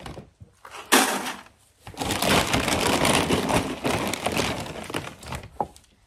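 Dry crinkling, rattling handling noise as horse feed and its bag are worked into a feed bucket. A sudden loud knock comes about a second in, then several seconds of dense crackling.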